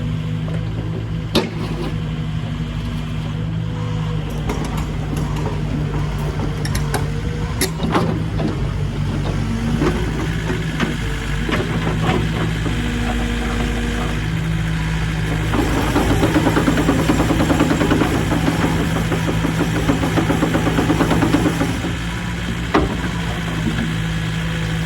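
Cat 308CR midi excavator's diesel engine idling steadily, with a few sharp clicks. Past the middle it gets louder, with a fast rattle for about six seconds, then settles back to idle.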